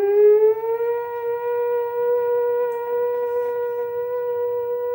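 A man imitating by mouth the town's eight o'clock siren: a single note that rises in pitch over the first second, then holds steady.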